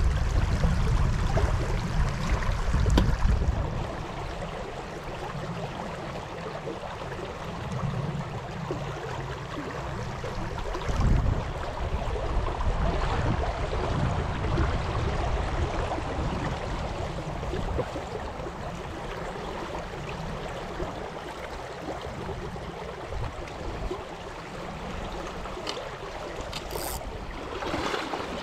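Shallow river current running over a rocky riffle, a steady rush of water. A heavier low rumble sits under it for the first few seconds and briefly again about eleven seconds in.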